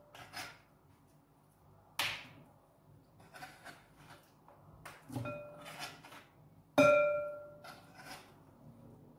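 Kitchen knife and cucumber on a cutting board, with a few sharp clinks of kitchenware, two of which ring on as a clear tone; the loudest, about seven seconds in, fades over about a second.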